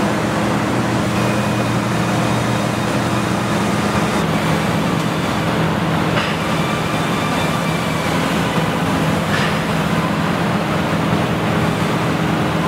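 Steady low machinery hum and noise of a truck assembly plant floor, with two faint clicks in the middle.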